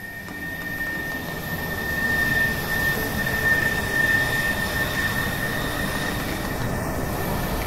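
A steady mechanical rushing noise with a thin high whine, growing louder over the first two seconds and then holding steady.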